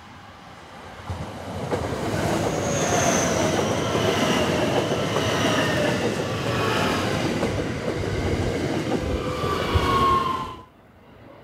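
A train passing close by on the line, its rolling noise loud and steady, with high tones sliding down in pitch as it goes. The sound builds about a second in and cuts off suddenly near the end.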